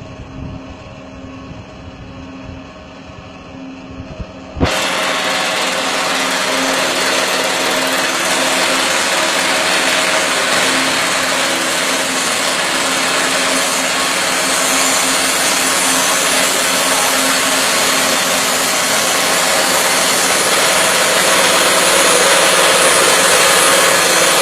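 Motor-driven abon (meat floss) shredding machine running with a loud, steady whirring noise that begins abruptly about five seconds in, after a quieter steady hum.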